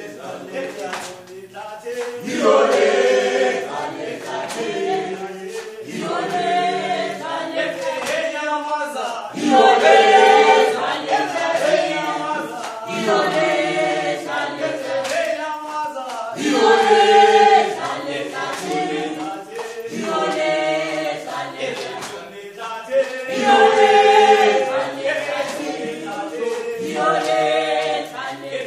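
A group of voices singing a revolutionary song together, unaccompanied, swelling loudly about every seven seconds.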